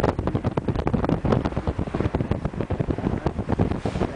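Wind buffeting the microphone of a camera filming from a moving vehicle, in uneven gusts, with the vehicle's road and engine noise underneath.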